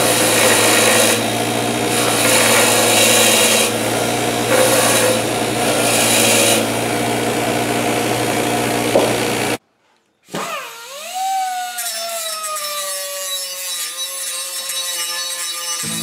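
Bench grinder running with a constant hum while a steel spindle is pressed against its wheel, the grinding noise swelling in surges every second or two. After a sudden break, a pneumatic cutoff tool runs with a high whine whose pitch sags slowly as it is brought to the bent edge of a steel brush hog blade.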